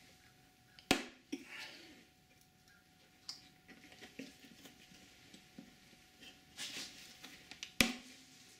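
Gloved hands opening the plastic pull-out pour spout on a coolant pail lid: two sharp snaps, about a second in and near the end, with rustling and scraping of the spout and lid between.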